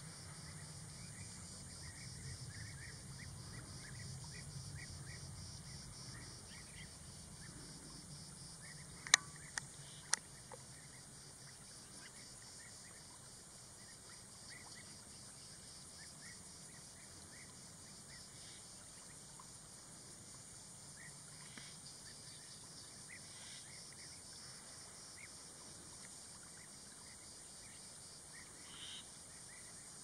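Faint marsh ambience: a steady high chorus of insects with scattered short bird chirps. Two or three sharp clicks come about nine to ten seconds in.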